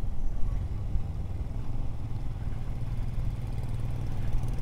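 Royal Enfield Himalayan BS6's single-cylinder engine running steadily while the motorcycle cruises along, heard from the rider's seat over a low rumble.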